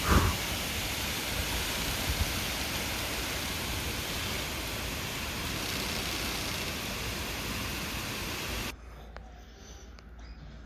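Loud, steady hiss of radio static over the broadcast audio, cutting off suddenly about nine seconds in. A low thump comes right at the start.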